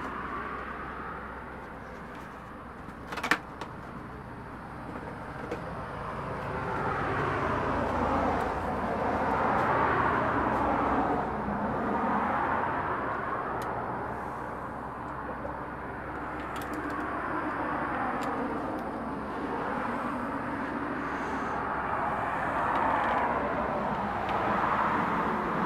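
Traffic on a busy road, cars passing one after another so the hiss swells and fades every few seconds. There is one sharp click about three seconds in.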